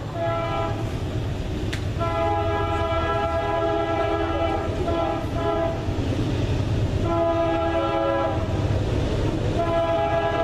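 CSX freight locomotive's multi-chime air horn sounding a string of blasts: a brief one, a long one of about four seconds, a shorter one and another that runs on, over the low rumble of diesel engines throttling up.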